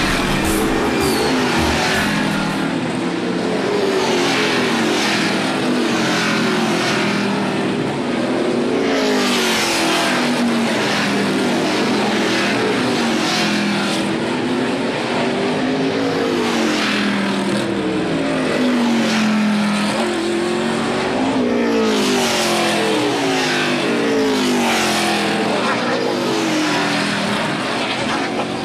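NASCAR stock cars' V8 engines running through a tight road-course turn, one car after another. The pitch repeatedly drops and then climbs again as each car brakes into the corner and accelerates out.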